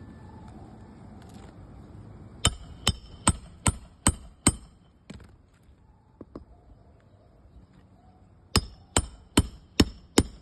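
A hammer striking a metal roof snake to drive roofing nails through an asphalt shingle, with a ringing clank on each blow. There are two runs of blows, about two and a half a second: six, then after a pause of about four seconds, five more.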